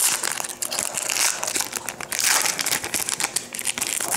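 Wrapper of a hockey card pack crinkling and crackling in the hands as the pack is opened.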